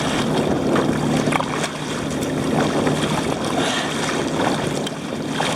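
Choppy sea water splashing and sloshing around a kayak being paddled hard, with wind buffeting the microphone. A steady low drone runs underneath, from a nearby fishing boat's engine.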